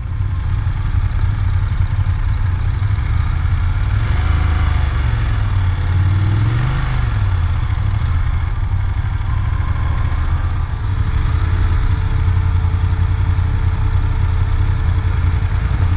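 BMW F750GS parallel-twin engine running at low town speed, heard from on the bike over a steady rush of wind and road noise. The engine note dips and then rises once a few seconds in.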